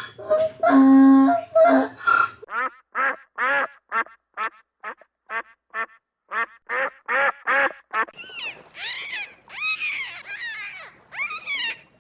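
Animal calls: a held call in the first two seconds, then a rapid run of short repeated calls, about two to three a second, each rising and falling in pitch. From about eight seconds in they give way to higher, more spaced-out arching calls.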